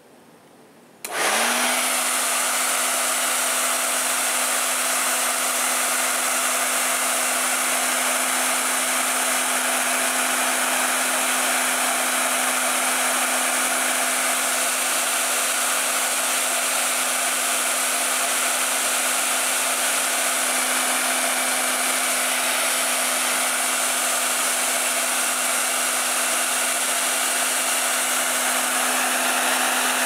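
Nelson hair dryer switched on about a second in, its motor spinning up quickly and then running steadily with a constant hum and rushing air.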